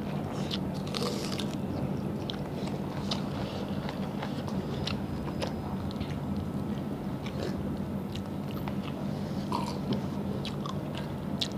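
Close-miked chewing and biting of mutton curry and rice eaten by hand: scattered short wet smacks and clicks of mouths and fingers, over a steady low hum.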